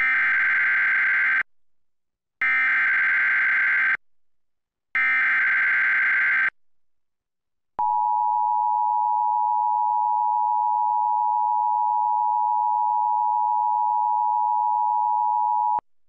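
Emergency Alert System tones on a TV broadcast: three bursts of SAME header data, a buzzy digital screech each about a second and a half long with short gaps between, then the two-tone EAS attention signal, a steady dual-pitched tone held for about eight seconds. It announces a National Weather Service severe thunderstorm warning.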